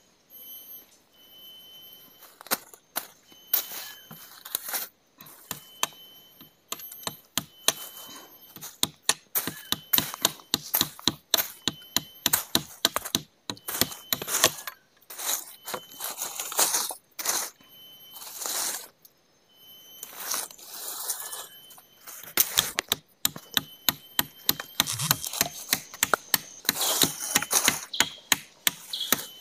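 Repeated sharp chops and knocks of a tool striking wood: irregular at first, then several a second near the end. A faint steady high-pitched whine sounds behind them.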